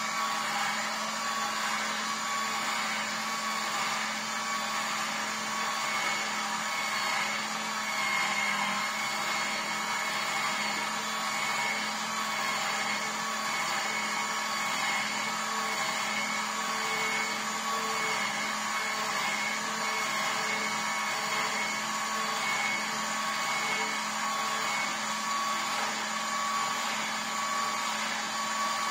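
Vertical slow juicer running steadily, its motor giving an even hum as the auger crushes pineapple chunks.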